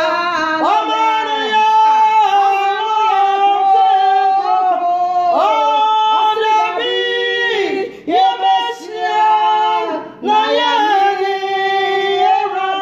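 Two women singing a worship song together, their voices breaking off briefly twice in the second half.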